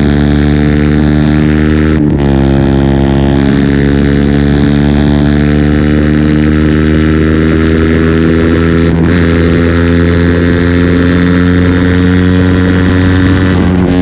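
KTM 125 Duke's single-cylinder four-stroke engine pulling under acceleration, its pitch climbing slowly through each gear. About two seconds in and again about nine seconds in, a gear change makes the pitch drop before it climbs again, and another shift comes near the end.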